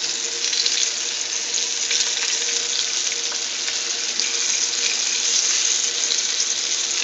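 Flour-coated squirrel pieces sizzling steadily in hot vegetable oil in a frying pan, with scattered small crackles and pops.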